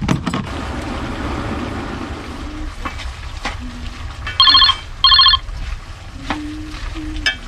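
A telephone rings twice, two short trilling rings about half a second long with a brief gap between them, over a steady background noise with the odd click of a wooden spoon stirring in a pot.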